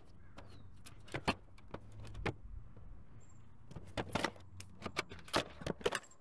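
Scattered sharp clicks and rattles of small hard items being handled and packed into a cardboard box, over a low steady hum.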